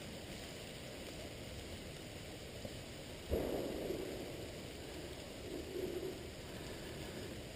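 Steady hiss of falling rain, with a single sharp knock about three seconds in.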